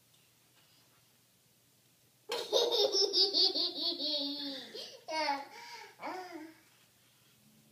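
A toddler laughing: after about two seconds of quiet, a long run of quick, high-pitched laughs, then two shorter laughs.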